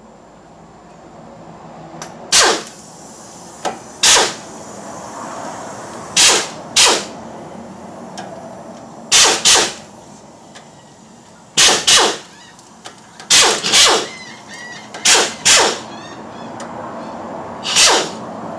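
A tool working the bolts on a Chevy Tracker's right CV shaft: about a dozen short, sharp bursts, several in quick pairs.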